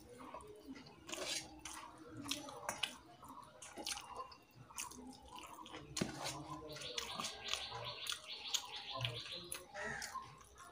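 Wet chewing and lip-smacking of rice and chicken curry eaten by hand, with the soft squish of fingers mixing rice in a steel plate. About seven seconds in, a rapid, high fluttering sound runs for a couple of seconds.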